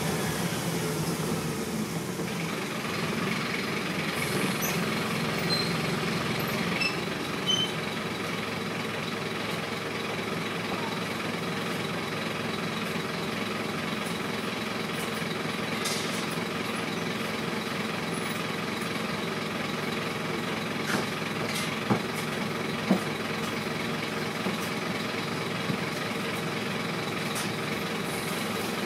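Interior noise of a Scania N230UB single-deck bus on the move: the five-cylinder diesel engine's steady drone under road and running rumble. A few sharp knocks or rattles come close together about two-thirds of the way in.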